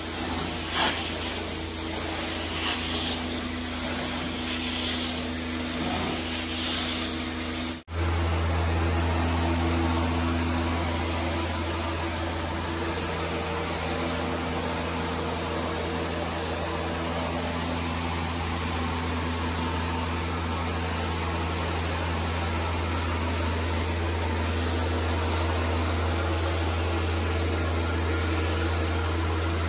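Carpet extraction equipment running: the cleaning wand hisses in strokes about once a second as it is pushed across the carpet tiles. About eight seconds in the sound cuts to a steady machine drone with an even spray hiss as the carpet is sprayed with cleaning solution.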